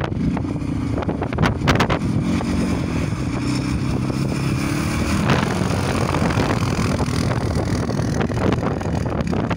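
CFMoto CForce 550 ATV's single-cylinder engine running as the quad drives past and away, with wind buffeting the microphone.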